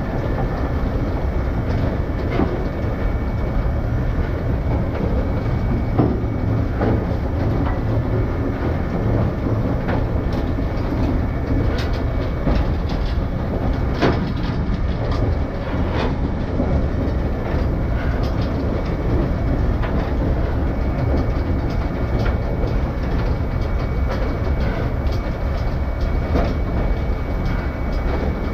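Heritage train running along the branch line: a steady heavy running noise, with the wheels clicking over rail joints every second or two.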